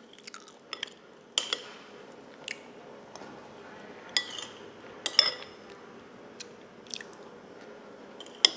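Eating chicken rice porridge with a metal spoon from a ceramic bowl: soft chewing and mouth sounds, with about a dozen short clicks of the spoon against the bowl. The sharpest click comes near the end.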